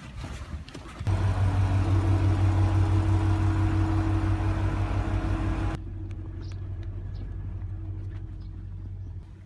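Diesel locomotive engine idling with a steady low hum, starting abruptly about a second in, then dropping suddenly to a quieter hum a little past halfway.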